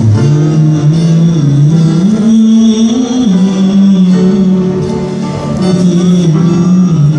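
Live acoustic ensemble music: a harmonium holds a stepping melody in long steady notes, over acoustic guitars.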